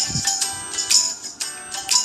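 Background music with a steady beat of jingling, tambourine-like hits about twice a second under a light melody.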